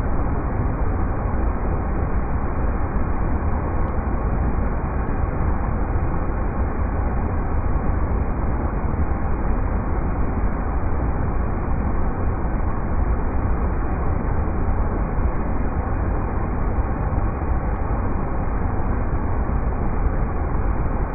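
Steady rushing of river rapids: an even, unbroken noise with most of its weight in a deep low rumble.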